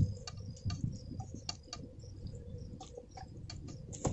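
Hands handling marinated chicken pieces in a steel bowl and pushing them into a green bamboo tube: scattered light clicks and taps, with a louder knock near the end.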